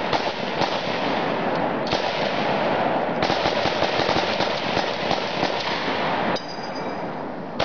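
Punctured propane tank venting a burning jet: a loud, continuous rushing hiss full of crackling. Rifle shots crack into it about two and three seconds in, and the rushing drops off suddenly near the end.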